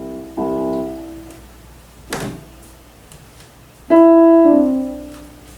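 Two electronic chime sounds, each a cluster of piano-like notes that ring and die away. A louder one about four seconds in has notes stepping downward, and there is a sharp click between the two.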